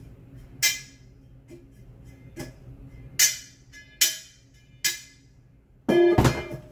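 Homemade bell cymbal, hammered from a circular saw blade, struck about six times at uneven intervals, each hit ringing briefly with a bright metallic tone. The last strike, near the end, is heavier and rings longer.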